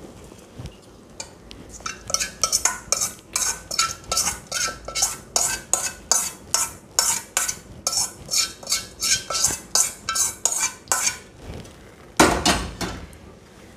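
A metal spoon scraping hot tempering out of a metal pan into a steel bowl, in quick repeated strokes about three a second with a metallic ring. Near the end there is one longer, louder scrape.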